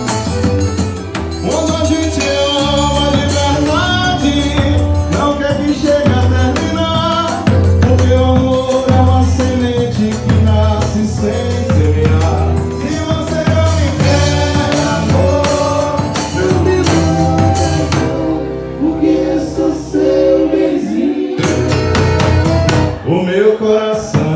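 Live forró band playing an upbeat dance tune: accordion carrying the melody over bass and a steady zabumba-drum beat. About two-thirds of the way in the percussion drops out for a few seconds, leaving accordion and bass, then the full band comes back in.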